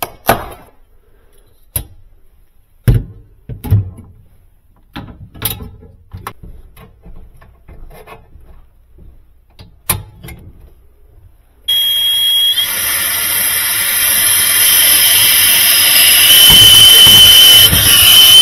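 Scattered clicks and handling knocks from hand tools and packaging, then about two-thirds of the way in a brazing torch lights with a sudden loud, steady rushing hiss and a thin high whistle. The torch is heating the refrigerator evaporator coil's copper tubing joints to unbraze them.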